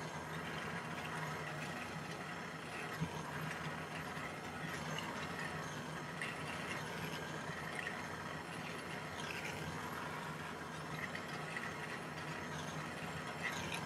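Small jeweller's gas torch flame hissing steadily as it heats a silver piece to soldering temperature for pick soldering, with a couple of faint clicks.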